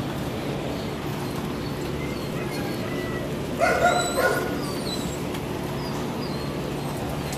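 A dog gives a quick double bark about halfway through, over a steady background hum.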